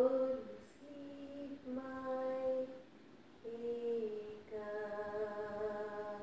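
A woman singing a slow lullaby in about five held notes, the last held longest near the end.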